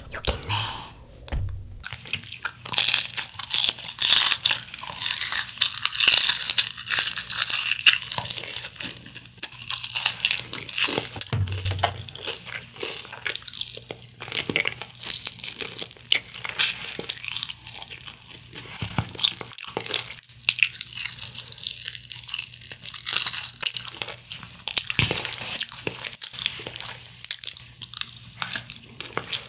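Crunching and chewing of crispy honey-glazed fried chicken (Kyochon Honey Combo), many sharp crackles as the coated skin is bitten and chewed.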